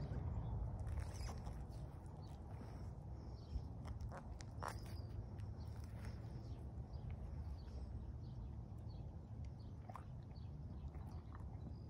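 Low, fluctuating rumble of wind on the microphone, with a few faint scattered taps and rustles.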